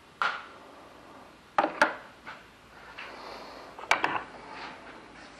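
Metal sockets and hand tools clinking and knocking as they are rummaged through: a handful of separate sharp clinks, two close together about a second and a half in and another about four seconds in.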